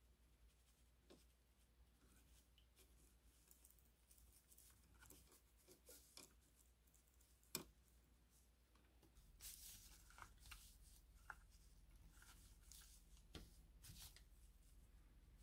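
Near silence with faint handling sounds: a cotton swab and pliers working on a model locomotive's pickup truck, small scratches and clicks, with one sharper click about seven and a half seconds in.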